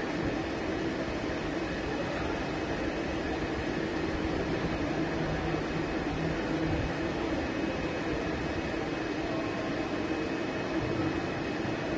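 Steady machine hum and hiss of a CNC turning-and-milling machine running, with a faint low tone joining in for a few seconds near the middle.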